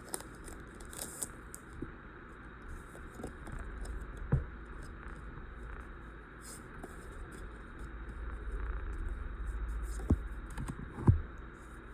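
Faint handling of a trading-card booster pack and cards: soft rustling with a few light taps.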